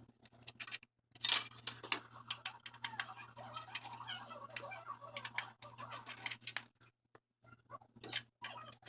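Irregular light clicks and taps with scraping and rustling of small hard parts being handled, over a steady low hum.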